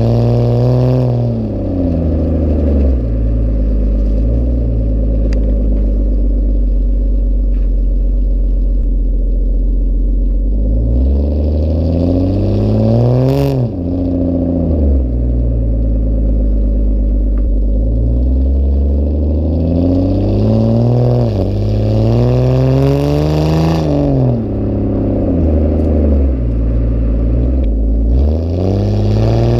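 Ford Fusion Sport's 3.5-litre Cyclone V6 exhaust, revving up and dropping back repeatedly. It holds a low, steady note for a stretch early on, climbs twice to a peak that drops off sharply, and near the end climbs steeply again under full throttle.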